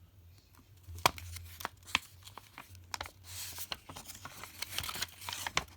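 Paper instruction manual being handled and its pages turned: scattered light taps and clicks, with a longer paper rustle about three seconds in.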